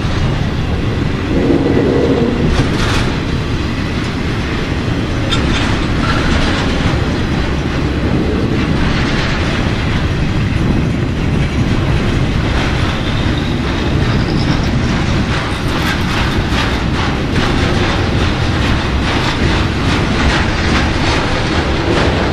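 Freight cars of an intermodal train carrying truck trailers rolling steadily past at close range: a continuous steel-wheel rumble with irregular clicks and clacks as the wheels pass over the rail joints.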